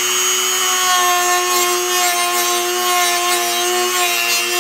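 A small power tool running at a steady speed with a constant-pitched whine, grinding away the edge of a hole cut in a carbon fiber fender.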